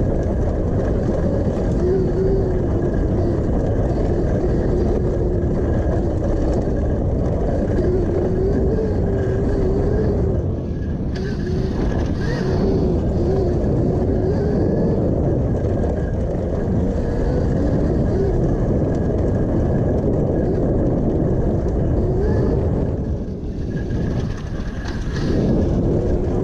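Electric motor of a Honda CRF150R converted to electric drive, whining with a pitch that rises and falls with throttle and speed, over a heavy rumble from riding the dirt trail. The drive eases off briefly twice, about a third of the way in and again near the end.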